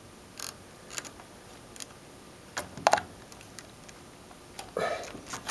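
Scattered light clicks and scrapes of multimeter test probe tips being worked into the slots of a wall outlet, with a slightly louder short sound a little before the end.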